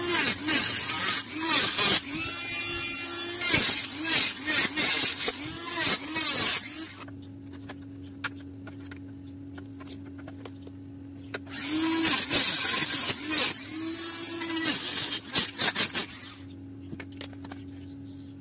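A small handheld power tool running with a steady hum, cutting into the plastic hard body of an RC crawler to open up the wheel arches. Two long harsh cutting stretches, the first ending about seven seconds in, the second starting a few seconds later and stopping a couple of seconds before the end.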